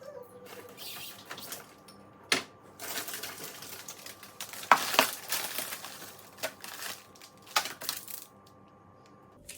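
Food containers and packets being moved about on fridge shelves: sharp knocks and clicks of plastic and glass against the shelves, with the rustle of wrappers between them. The loudest knock comes a little under five seconds in.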